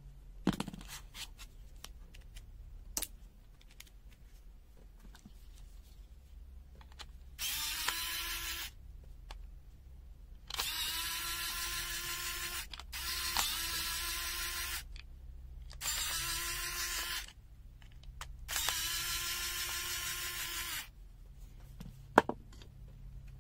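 Small electric screwdriver running in five short bursts of one to two seconds each, a steady whine that spins up at the start of each, backing out the screws of the multimeter's plastic case. Light clicks come between the bursts and one sharp click near the end.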